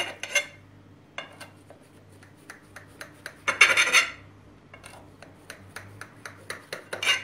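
Knife cutting through a baked semolina cake in a glass baking dish, its blade scraping and ticking against the glass bottom. There are several louder scraping strokes, the longest about three and a half seconds in.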